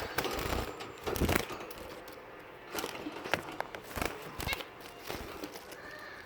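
Finches moving about in their cage or nest, making irregular rustles and clicks, with a brief chirp about four and a half seconds in.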